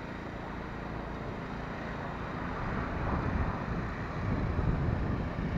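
Wind buffeting the built-in microphone of an AKASO EK7000 action camera over a steady outdoor background noise. The low rumble swells about three seconds in and again near the end.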